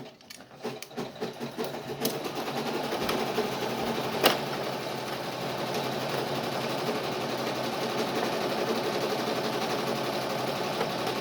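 Brother NV880E sewing and embroidery machine running steadily with an even mechanical whirr. A few small handling clicks come first, and there is one sharp click about four seconds in.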